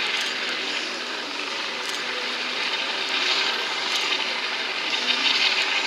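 Coast Guard MH-65 Dolphin helicopter hovering low over the water, a steady, distant turbine and rotor noise that swells slightly twice.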